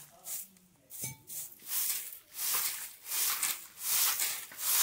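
A broom sweeping the ground in repeated brushing strokes, about two a second, louder after the first second or so.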